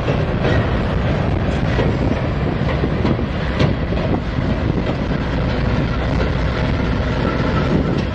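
Norfolk Southern freight train rolling across a steel truss railway bridge, its wheels clacking over the rail joints, with scattered sharp knocks. Covered hopper cars pass, then diesel locomotives.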